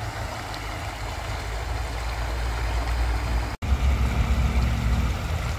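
Steady rush of a shallow, rocky stream with a low, uneven rumble underneath. The sound cuts out for an instant about three and a half seconds in.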